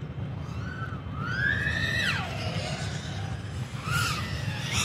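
A 3-inch FPV quadcopter's motors and props whining as the throttle is punched and cut. The pitch climbs steeply, then drops away, and a second shorter rise and fall comes near the end, over a steady low rumble.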